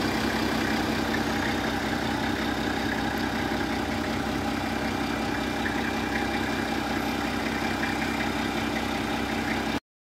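Nissan Safari engine idling steadily with a smooth, even note.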